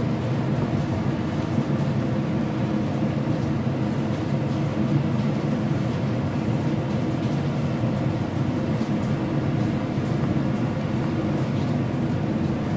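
Steady low mechanical hum with several pitched tones, even in level throughout.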